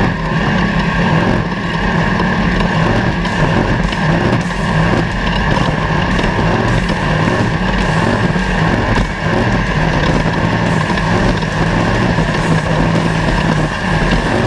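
Off-road race vehicle's engine running at steady revs, heard over a constant rush of noise.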